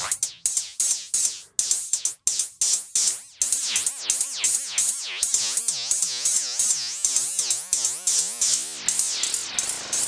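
Rapid synthesized hi-hat-like hits fed through a Joranalogue Delay 1 Eurorack module on a very short delay with feedback, its delay time swept by an LFO. This gives a metallic flanging zing that rises and falls in pitch a few times a second. The hits come in sparse bursts at first, then run dense and continuous from about three seconds in.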